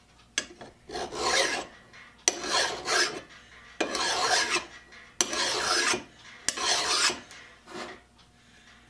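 Flat hand file rasping across the metal body of a Skinner Junior three-jaw lathe chuck, five strokes about a second and a half apart, dressing down dings and raised spots. The file is dragged back over the work instead of lifted on the return stroke.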